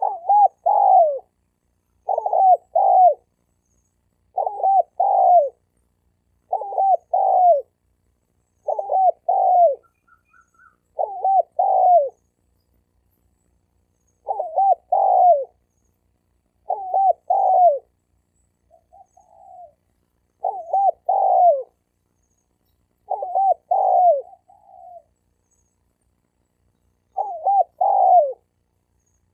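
Male spotted dove cooing: a short phrase of a few low notes, repeated about every two seconds, with a couple of softer, shorter coos in between. This is a 'bổi' call, the song of a wild male, of the kind played to provoke rival males.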